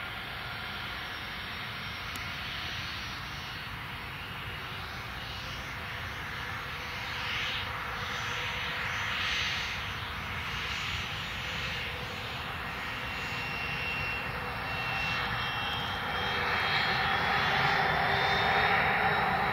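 Cessna 680 Citation Sovereign's twin rear-mounted Pratt & Whitney Canada PW306 turbofans running at taxi power: a steady jet hiss and whine that grows louder over the last few seconds as the jet swings onto the runway.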